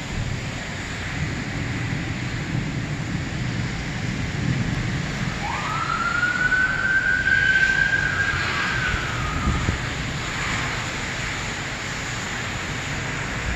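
A distant emergency-vehicle siren wails up about five seconds in, holds its pitch for about three seconds, then drops away. Behind it is a steady hiss of storm rain and wind.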